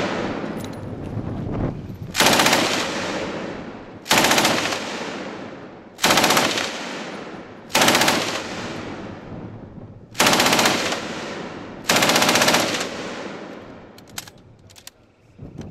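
Belt-fed machine gun firing six short bursts of rapid fire, each under a second long and about two seconds apart, each trailing off in echo.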